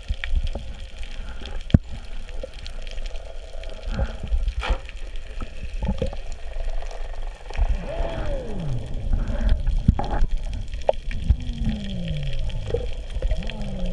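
Underwater ambience of a scuba dive, recorded underwater: a constant low rumble of water and bubbles with scattered sharp clicks and knocks. A few slow gliding tones rise and fall from about 8 seconds in and again near the end.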